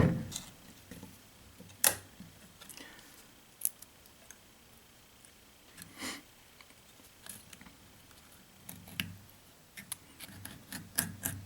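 A bushcraft knife carving a small stick into a feather stick: intermittent short scrapes and clicks of the blade on the wood, coming closer together near the end.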